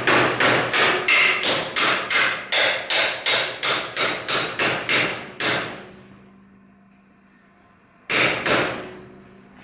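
Hammer tapping a bolt through the power steering rack's mounting bracket on the steel chassis frame: a quick, even run of about three strikes a second for some five seconds, then two more strikes near the end.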